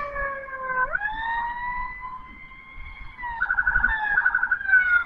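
Ambulance's electronic siren sounding loudly: a wail that falls, sweeps sharply back up about a second in and holds, then switches to a rapid warble near the end before falling again.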